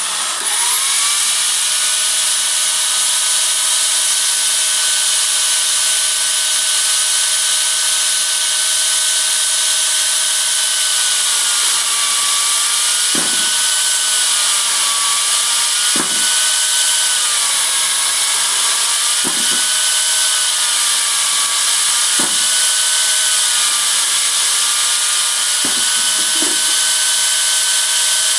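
Bench-mounted chainsaw running steadily with a high whine, its pitch sagging again and again as it bogs under load cutting branches. Short knocks come every few seconds as the branches are fed and cut.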